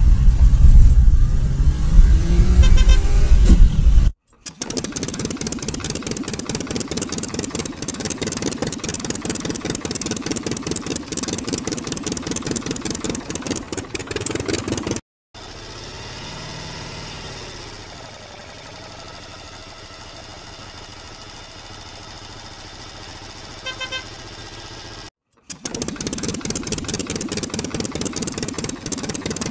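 Vehicle engine sounds in separate edited pieces: a loud low rumble for about the first four seconds, then a fast rattling engine beat, a quieter steady engine hum from about fifteen seconds in, and the rattling beat again near the end.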